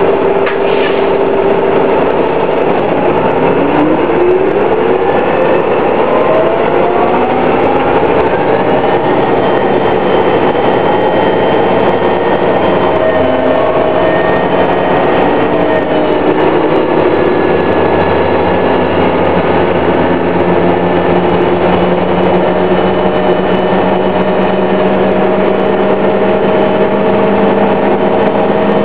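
Detroit Diesel Series 50 engine and Allison B400R transmission of a 2000 New Flyer D60 articulated bus, whining under way. A few seconds in, a whine rises steadily in pitch over about six seconds as the bus accelerates, then holds as steady whining tones over the engine's running.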